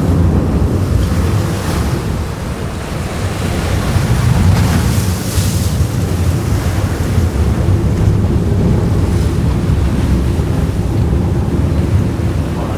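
Wind on the microphone over the rush of water past a sportfishing boat running offshore, loud and steady, with a deep rumble underneath.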